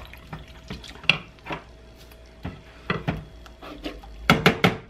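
A wooden spoon stirring green beans in a stainless steel pot, knocking and scraping against its sides in scattered clicks. Near the end, a quick run of about four louder knocks as a can of green beans is tipped and tapped against the pot.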